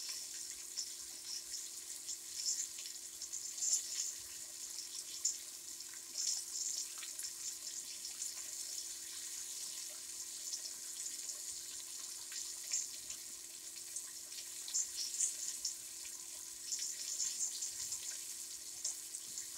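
Flour-dredged chicken breast fillets searing in hot olive oil in a deep pot: steady sizzling with scattered crackles and pops.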